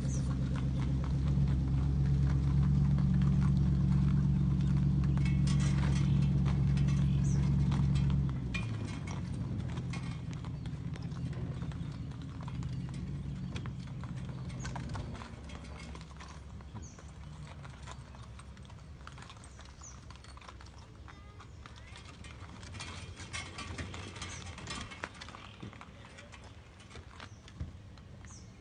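Horses' hooves clip-clopping on a paved boat ramp as a two-horse team pulls a buggy and boat trailer, coming in clusters of steps. A vehicle engine idles low and steady underneath, the loudest sound for the first eight seconds or so, then drops away and fades out.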